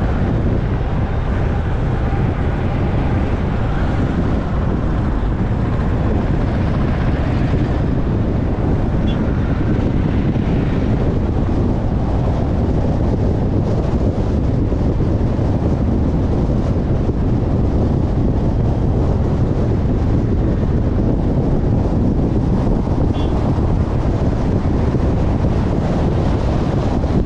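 Steady wind rumble on the microphone mixed with road and tyre noise from a car driving at speed.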